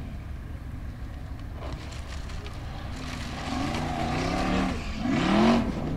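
Formula Offroad buggy's engine revving in surges as it climbs a steep dirt hill, its pitch rising and falling. The revving starts about three seconds in and is loudest near the end, over a low rumble.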